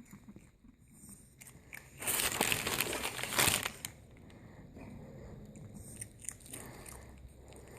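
Chihuahua crunching dry Cheerios, small scattered crunches with one much louder, dense crackling stretch about two seconds in that lasts roughly a second and a half.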